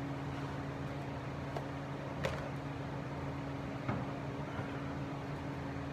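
Steady low hum of a running machine, with two light clicks about two seconds and four seconds in.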